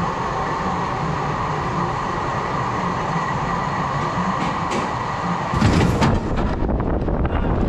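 Free fall tower ride high on the tower: a steady mechanical hum with noise from the air around the microphone. About five and a half seconds in it changes abruptly to a louder, deeper rush of noise.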